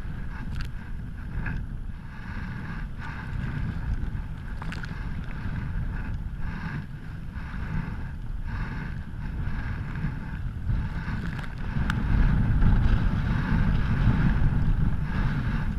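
Wind noise on the microphone and water splashing around a sea kayak being paddled in choppy, windy conditions. The wind noise grows louder about three quarters of the way through.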